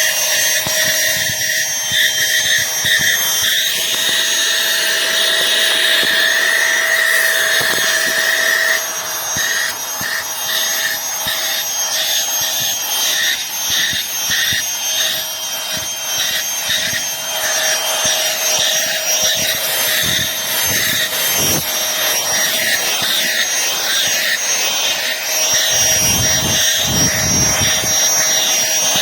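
Aspiron cordless handheld vacuum cleaner running continuously: a steady motor whine over the rush of air through it.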